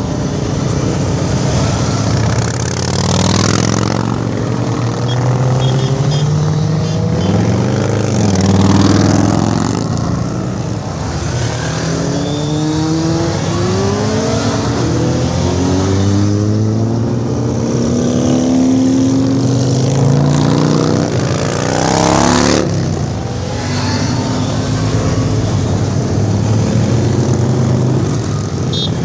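A procession of motorcycles riding past one after another, engines revving and rising in pitch as each accelerates away, their notes overlapping.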